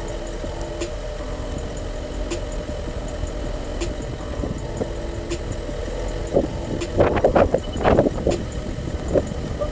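Vehicle engine idling steadily, with a faint regular tick about every second and a half. About six to eight seconds in there is a short flurry of louder knocks and rasps.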